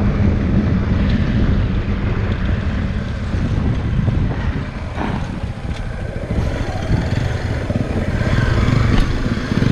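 Motorcycle engine running steadily, with wind noise on the microphone.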